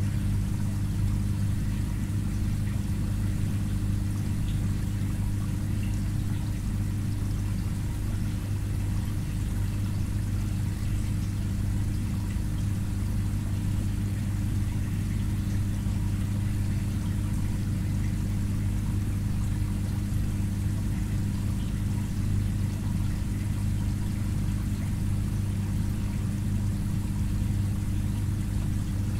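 Aquarium filter pump running: a steady low hum, with water trickling faintly.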